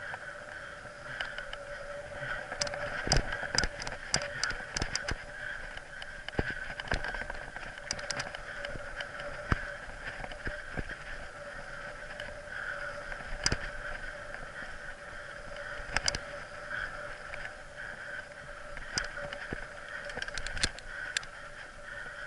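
Mountain bike rolling over a dirt singletrack: a steady whir of tyres and drivetrain, with sharp knocks and rattles from bumps in the trail, in clusters a few seconds in, around the middle and near the end.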